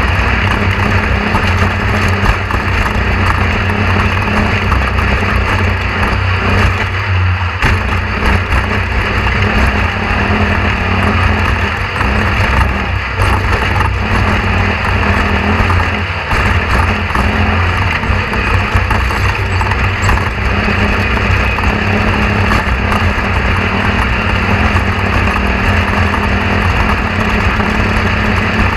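A loud, steady low engine drone, like a running vehicle, holding even throughout.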